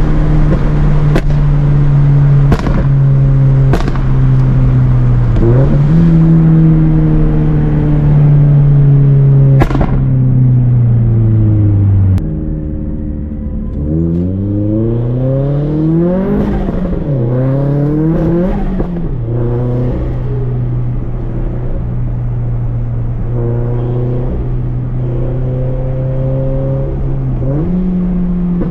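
Turbocharged Scion FR-S flat-four engine running through a Tomei 80R cat-back exhaust while driving, with a steady drone. A few sharp cracks come in the first ten seconds. The revs fall around ten seconds in, rise and fall several times a few seconds later, then hold steady and step up near the end.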